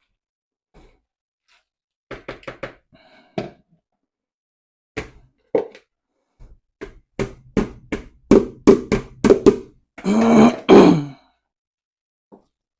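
Parboiled rice being tipped into a pot of sauce, with sharp knocks of the container or utensil against the pot. The knocks come faster and louder about seven seconds in, then end in a louder rattling burst.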